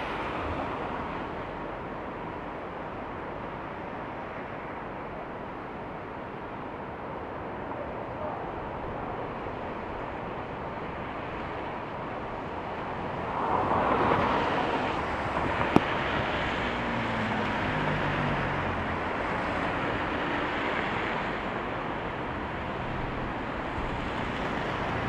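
Hurricane-force wind blowing through the street and buffeting the microphone as a steady rushing noise. It swells with a stronger gust about halfway through, and there is a single sharp click a couple of seconds later.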